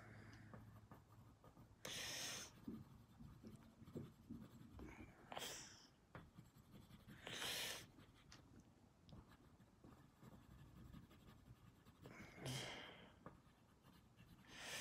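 Graphite pencil scratching on drawing paper in several brief shading strokes, a few seconds apart.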